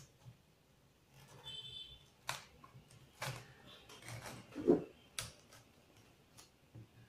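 Scissors stabbing and snipping into the green husk of a tender coconut: a series of irregular short crunching clicks and snips, with one louder, duller knock about two-thirds of the way through.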